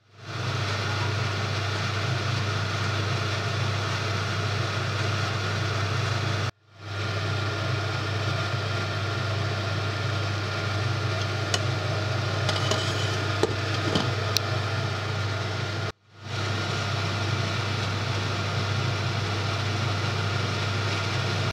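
A pot of mussels steaming in boiling water on a hob: an even bubbling hiss over a steady low hum, with a few faint clicks in the middle. The sound cuts out briefly twice.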